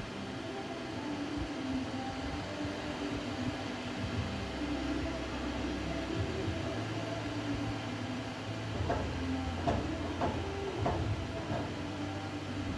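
Steady low mechanical hum of workshop machinery, with a few light knocks about nine to eleven seconds in.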